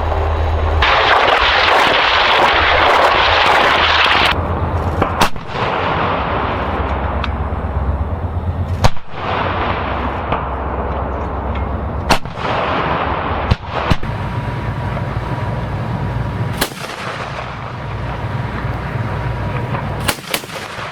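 Heavy military guns firing a series of single shots, about seven, spaced several seconds apart with the last two close together, over a steady low engine rumble from armoured vehicles. A loud rushing blast fills the first few seconds.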